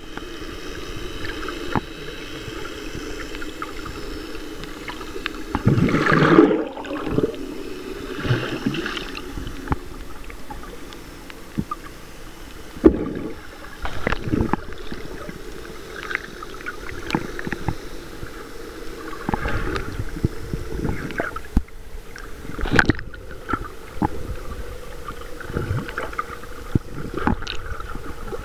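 Muffled underwater sound picked up by a submerged camera: water gurgling and sloshing over a steady hum, with a louder gurgle about six seconds in and a few sharp knocks later on.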